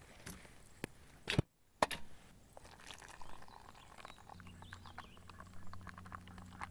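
A steel camp pot clinks a few times as it is lifted off the stove, then hot water is poured into a collapsible cup and stirred with a utensil, giving many small quick ticks. A low steady hum starts about halfway through.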